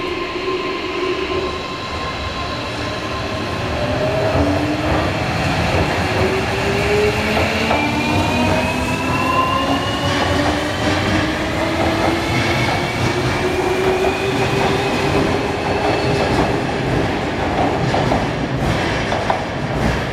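JR Kyushu 305 series electric train pulling away, its Toshiba VVVF inverter driving permanent-magnet synchronous motors: a steady hum at first, then from about four seconds in several whining tones rising slowly in pitch as it accelerates, over the rumble and clatter of the wheels on the rails.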